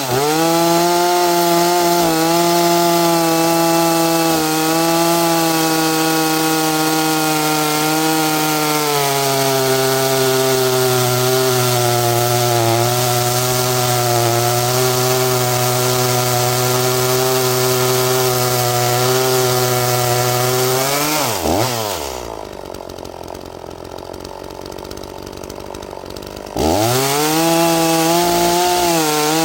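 Two-stroke chainsaw at full throttle cutting through a log. The engine pitch sags a little about a third of the way in as the bar sinks deeper and the load grows. Near the end the saw drops to idle for about five seconds, then revs back up into the wood.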